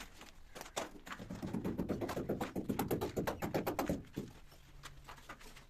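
Rapid tapping, several sharp taps a second, building up about a second in and stopping near four seconds.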